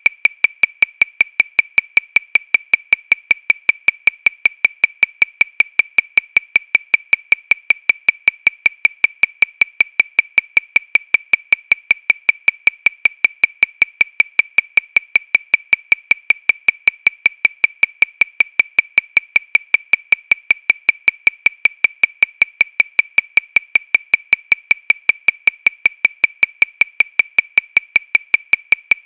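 Metronome clicking steadily at 314 beats per minute, a little over five clicks a second. Each click is short, high-pitched and alike, with no accented beat.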